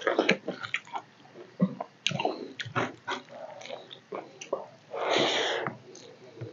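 Close-up eating sounds of a person chewing a mouthful of rice and fish curry eaten by hand: a run of short, wet smacks and clicks, with one longer rush of noise about five seconds in.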